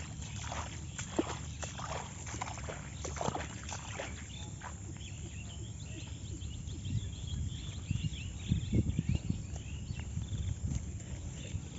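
Bare footsteps swishing through tall grass, with a run of short high chirps in the background around the middle and a burst of heavier, thumping steps near the end.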